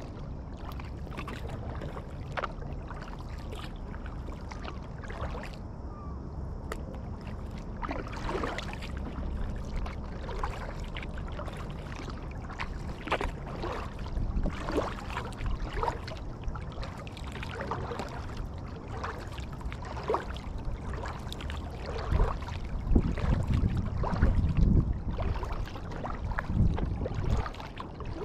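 Kayak paddling: the paddle blades dipping and pulling through the water about once a second, with splashing and dripping. Underneath runs a low rumble that grows louder in the last few seconds.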